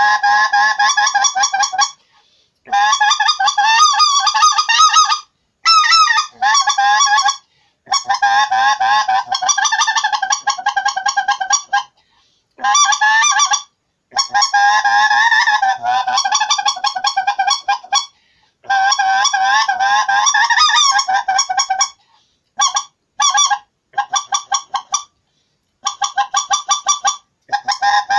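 Redbone polycarbonate goose call with a Delrin sound insert, blown by mouth with cupped hands, sounding loud runs of rapid goose honks in bursts of one to three seconds with short pauses between; in the last few seconds the runs come in shorter, quicker clusters.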